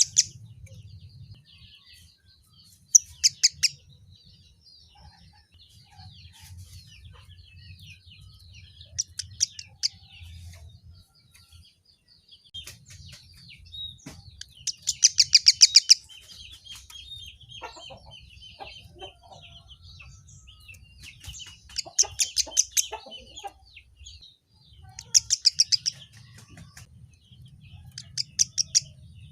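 Kemade (emprit kaji) munia singing: loud, rapid trills repeated every few seconds, with softer chattering in between, over a faint low hum.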